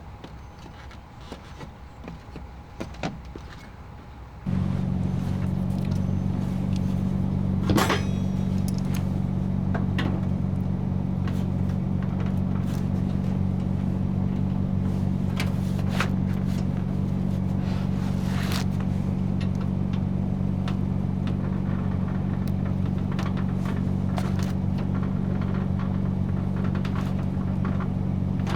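A vehicle engine idling steadily with a low, even hum. It comes in abruptly about four seconds in, and a few sharp knocks or clicks sound over it.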